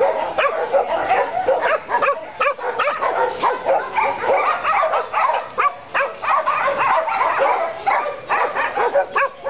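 Many dogs barking at once, their barks overlapping in a dense run without a break.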